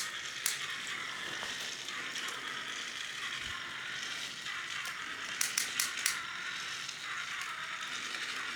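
Small solar-powered toy robot motors and gears whirring steadily, with the sharp clicks of a ratchet wheel as a robot steps forward: one click about half a second in and a quick run of four a little past the middle.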